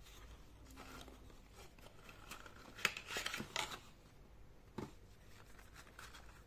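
Cardboard watch box being handled and slid apart: faint paper scraping and rustling with a few light clicks, busiest about three seconds in.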